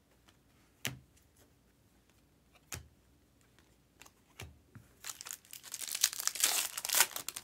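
Three sharp knocks as trading cards are handled, then a 2023 Panini Select baseball card pack's foil wrapper is torn open, crinkling densely for about two seconds near the end.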